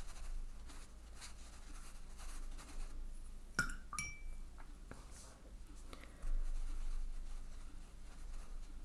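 Watercolour brush dabbing and scrubbing wet paint on watercolour paper, a faint, soft, repeated scratching. About three and a half seconds in there is a brief light clink with a short ring.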